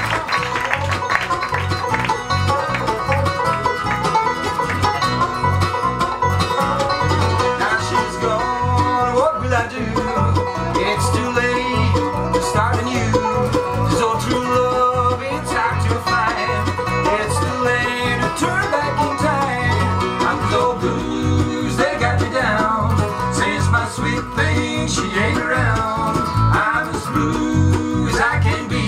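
A bluegrass band playing live: banjo, mandolin, guitar and bass, with a steady bass pulse under the picking. Two men sing together into one microphone for part of it.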